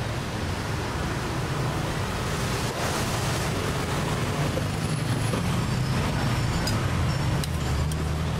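Steady street traffic noise with a low engine hum underneath, and a few light clicks in the second half.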